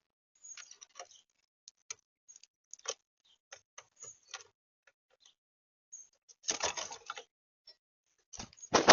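Irregular small taps and clicks of birds pecking and scratching at a feeder close to the microphone, with two louder rustling bursts, one about six and a half seconds in and one near the end.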